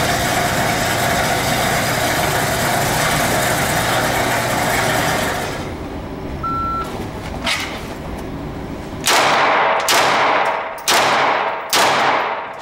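A steady mechanical hum runs and stops, then a shot timer gives one short beep, and about two and a half seconds later a Walther PPQ 5-inch pistol fires four shots roughly a second apart, each echoing.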